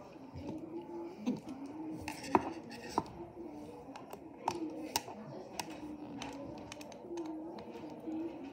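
Scattered sharp clicks and taps as a small robot chassis of aluminium channel with plastic gears and brackets is handled and turned, over a faint murmur of voices.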